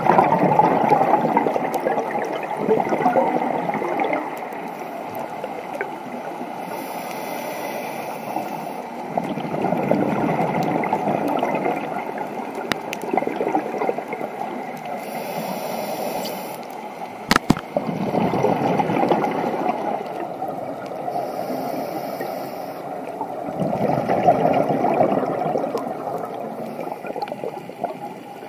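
Scuba diver breathing through a regulator, heard underwater: exhaled bubbles bubble out in muffled surges several seconds apart, each preceded by a short, higher hiss of inhalation. A single sharp knock sounds a little after halfway.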